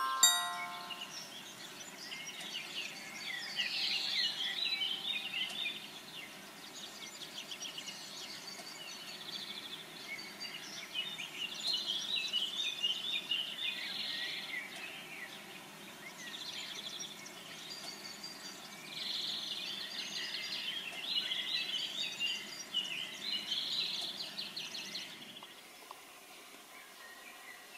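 A songbird singing rapid warbling phrases in three bouts of a few seconds each, over faint steady outdoor background noise.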